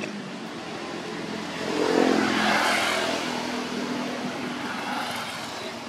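A motor vehicle passing by: its engine and road noise swell to a peak about two seconds in, then fade away over the next few seconds.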